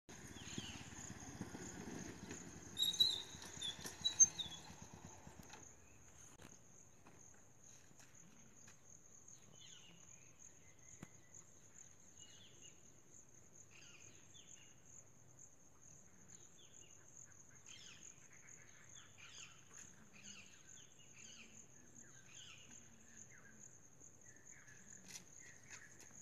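A steady high-pitched insect drone over open countryside, with scattered short bird chirps through most of it. For the first five seconds a louder low rumble with a couple of sharp peaks sits underneath, then stops abruptly.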